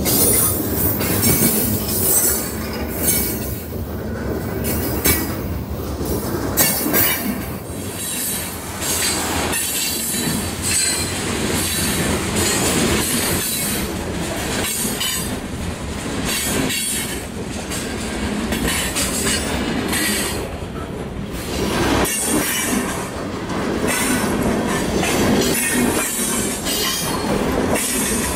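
Freight cars rolling past close by: a continuous rumble of steel wheels on rail, with many irregular clicks over the rail joints and thin high squeals from the wheels.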